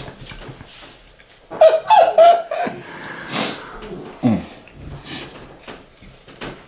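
Short wordless vocal sounds from people: a high wavering cry about one and a half seconds in, a breathy burst a second later, and a low groan falling in pitch a little after four seconds.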